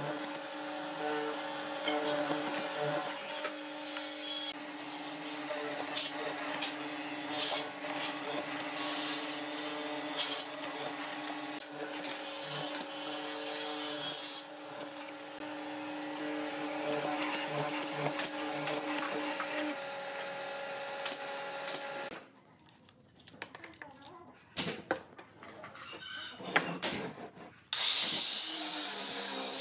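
Benchtop hollow-chisel mortiser running with a steady motor hum as its square chisel plunges repeatedly into pine, cutting a row of mortises. The machine stops about three-quarters of the way through, leaving a few knocks, and a small handheld grinder fitted with a sanding disc starts up near the end.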